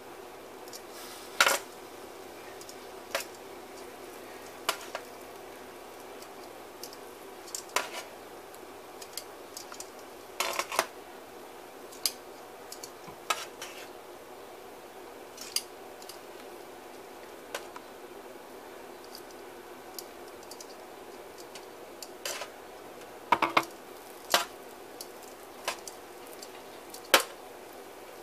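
Metal tongs clinking against a metal baking sheet and a crock pot as meatballs are moved across, in scattered sharp clicks every second or so over a steady low hum.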